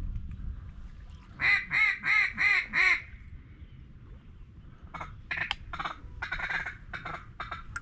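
Duck call quacking: five loud, evenly spaced quacks, then, about two seconds later, a quicker, choppier run of shorter quacks.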